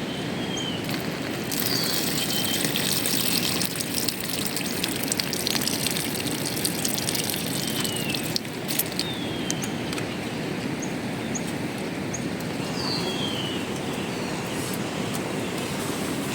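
Steady rush of running water, with several short, high, falling bird chirps scattered through it.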